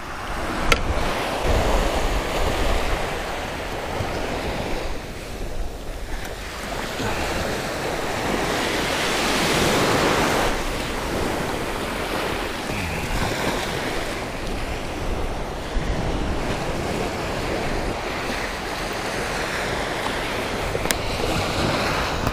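Low surf washing ashore, small waves breaking and fizzing over the sand, with a louder wave washing in near the middle. Wind buffets the microphone at times.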